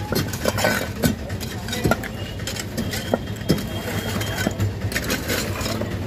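Iron crowbar striking and prying at broken brick and concrete masonry: irregular sharp metal-on-masonry knocks and clinks as loose bricks and rubble clatter, over a steady low hum.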